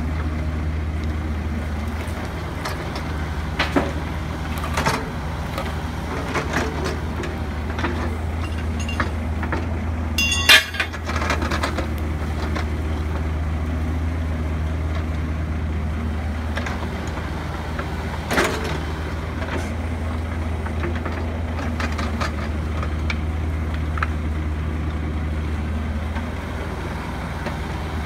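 Kubota KX121-3 mini excavator's diesel engine running steadily under working load, with scattered clanks and scrapes of the steel bucket in dirt and rock. The loudest is a sharp metallic clank with a short ring about ten seconds in.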